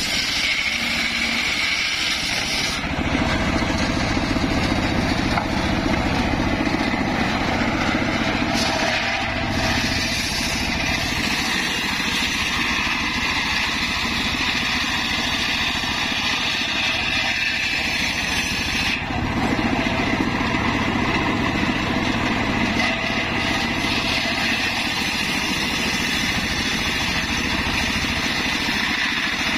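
Engine-driven homemade table circular saw running steadily while its blade rips lengthwise through logs and planks. The sound shifts about 3 s in and again near 19 s.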